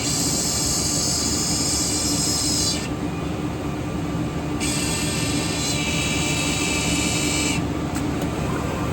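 CNC six-sided panel drilling machine running: a steady machine hum with a high-pitched whine that sounds for about three seconds, stops, and comes back for another three seconds.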